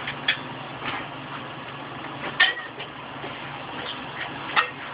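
Light kitchen clinks and knocks of a spoon, glass jar and dishes being handled, four or so, the loudest a short ringing clink about halfway through, over a steady low hum.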